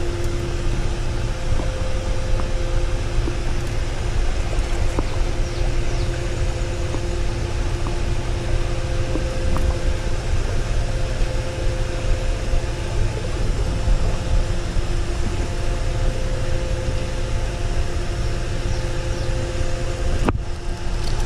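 Steady rushing noise of a flowing creek with a low rumble, under a steady hum of two tones from an unseen machine. The sound cuts out for an instant near the end.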